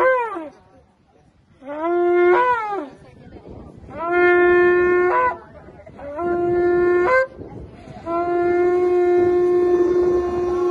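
A long spiralled shofar blown in a series of short blasts on one steady note, some bending or breaking in pitch as they stop. A long held blast begins about eight seconds in.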